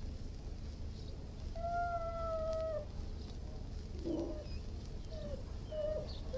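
Irish wolfhound whining: one long, steady, high whine starting about a second and a half in, then a short rougher whimper and a few brief whines near the end, over a low steady hum.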